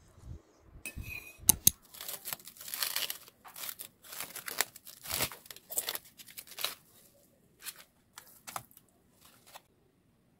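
Two sharp clicks, then plastic cling wrap crinkling and tearing as it is peeled off a foam food tray, in a dense run of rustling rips that thins to a few scattered crinkles.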